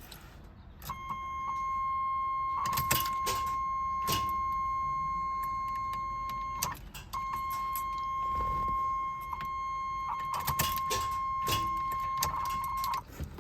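Car warning buzzer sounding a steady high tone in two long stretches with a short break between, over several sharp clicks like a key being worked in the ignition. No engine cranks or runs: the G-body Monte Carlo SS won't start.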